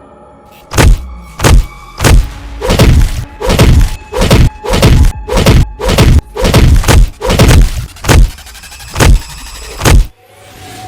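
About fifteen heavy punch and thud sound effects in quick succession, roughly one every half second and spacing out near the end, over background music.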